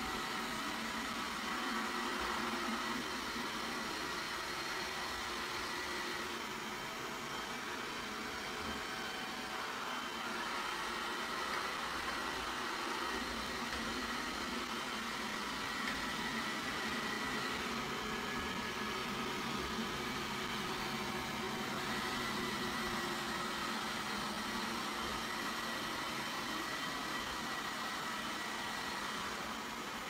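Roborock S50 robot vacuum cleaner running steadily, its suction fan and brushes making an even whirr with a faint high whine that comes and goes.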